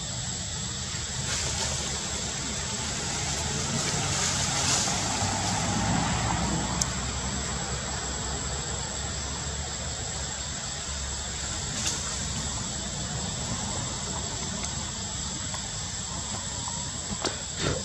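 Steady outdoor background noise: a low rumble with a constant high-pitched whine above it, and a couple of faint clicks.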